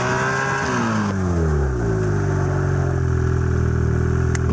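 2014 Ski-Doo Renegade Backcountry's 600 E-TEC two-stroke engine coming off the throttle as the snowmobile pulls up. Its pitch drops about a second in, then settles to a steady idle.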